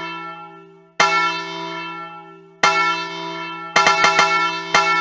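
Bell tones struck and left to ring and fade: one about a second in, another past two and a half seconds, then a quick run of strikes in the last second that cuts off abruptly.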